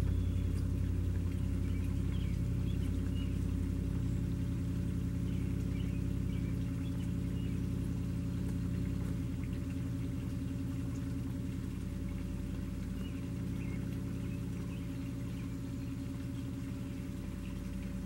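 An engine running steadily with a low hum that slowly fades. Faint bird chirps sound over it.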